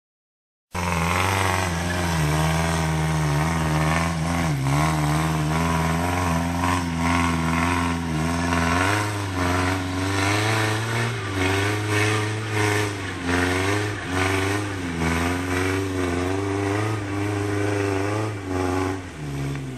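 Off-road 4x4's engine running steadily under load, its pitch wavering up and down. It comes in after a brief moment of silence at the start.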